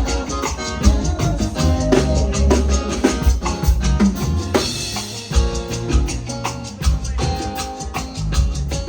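Live band playing an instrumental groove led by a drum kit with strong bass. About halfway through the bass drops out for a moment under a cymbal-like wash, then the groove comes back.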